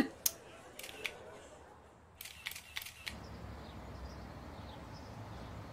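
Smartphone camera shutter clicking several times as selfies are taken: one loud click just after the start, two more about a second in, and a quick run of clicks between two and three seconds.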